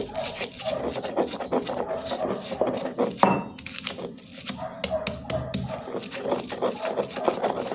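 Stone pestle grinding in a volcanic-stone molcajete: rapid, irregular knocks and scrapes of stone on stone as chopped onion, garlic cloves and salt are crushed into a paste.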